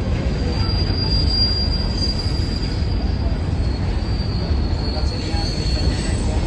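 Train rolling past with a steady low rumble of wheels on rail, and a thin, high-pitched steel wheel squeal held for most of it and fading near the end.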